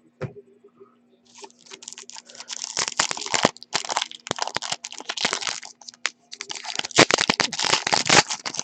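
Foil trading-card pack wrapper crinkling and crackling as it is picked at and torn open by hand, starting about a second in.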